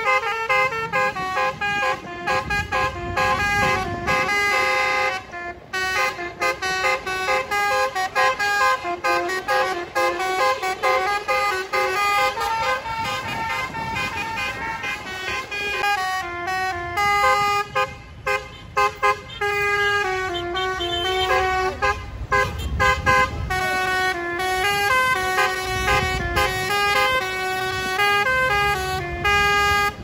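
A coach's roof-mounted basuri musical air horns playing a telolet melody, stepping from note to note without a break. A low engine rumble swells underneath twice near the end.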